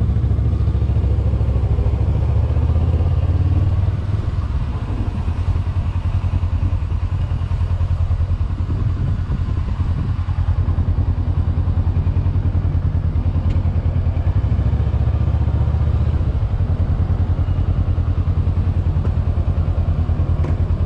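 Kawasaki Versys motorcycle engine running as the bike rolls slowly at low revs. It pulls a little harder for the first few seconds and again for a couple of seconds about three quarters of the way through.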